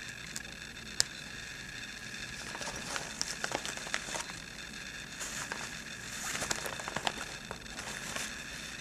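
Close-up sounds of embroidered fabric and thread being worked by hand as the jump threads of a machine-embroidered design are picked and cut: a single sharp click about a second in, then scattered small crackles and clicks, with a fuller rustle of the fabric a little past the middle.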